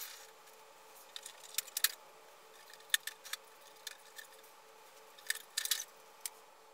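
Hard plastic parts of a 1987 G.I. Joe Defiant gantry clicking and clattering as they are handled and worked apart: a sharp click at the very start, scattered clicks after it, and a quick cluster of clatters about five seconds in, over a faint steady hum.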